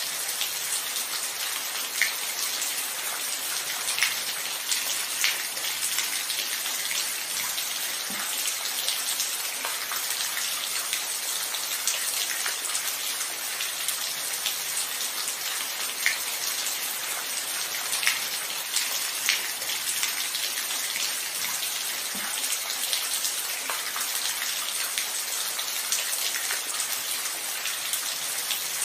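Steady rainfall: an even hiss of rain with irregular, sharper drop hits standing out every second or so.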